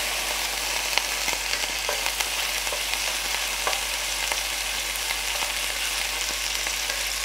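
Thin strips of turkey breast sizzling steadily in hot oil in an electric frying pan on its highest setting, with a few light scrapes and taps of a utensil stirring them.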